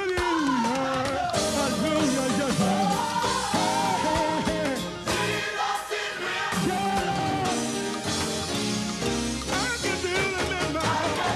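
Live gospel music: a male lead vocalist singing into a microphone over band accompaniment, his voice sliding up and down in pitch.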